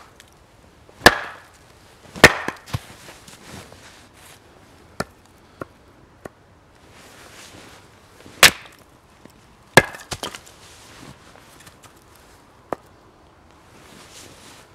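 Axe blows splitting a log on a chopping block: sharp wooden chops about a second and two seconds in, two more around eight and ten seconds in, with lighter knocks between.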